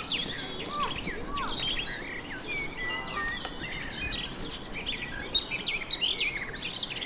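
Several wild birds singing and calling at once: a busy, overlapping mix of short chirps, trills and whistled notes over a steady background hiss.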